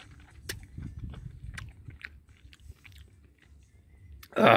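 A person chewing a freshly bitten strawberry close to the microphone: soft wet mouth noises with small clicks. A brief loud burst comes near the end.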